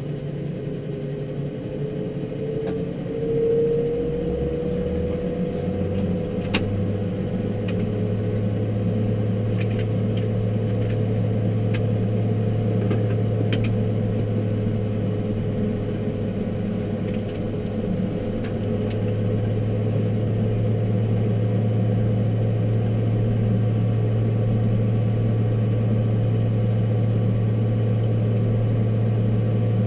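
Saab 340's General Electric CT7 turboprop spooling up during engine start, heard in the cockpit. A turbine whine rises over the first few seconds, then the propeller's low drone climbs in pitch about four to six seconds in and settles into a steady ground-idle drone. A few light clicks sound over it.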